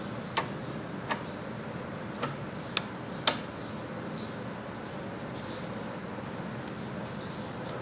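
Screwdriver clicking and tapping against the screws and wire terminals of a motorcycle magneto stator plate: five sharp metallic ticks in the first three and a half seconds, the last one the loudest, then only a steady background hiss.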